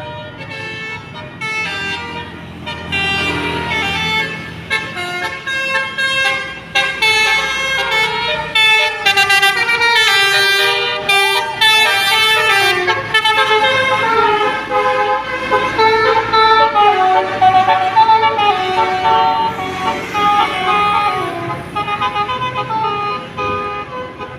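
Telolet bus horn: a set of multi-tone air horns playing a melody, several horn tones sounding together and stepping quickly from note to note without a break. It grows louder a few seconds in and is loudest around the middle.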